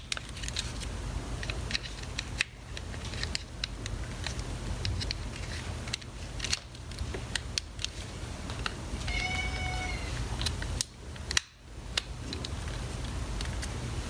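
Scattered small plastic clicks and taps as the snap-clipped side cover of a Panasonic ES-RL21 electric shaver is pried off, over a steady low hum. About nine seconds in comes a single short pitched cry, under a second long.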